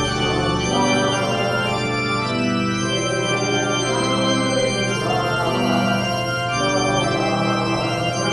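Organ playing slow, held chords over a steady low bass note, the chords changing every second or so.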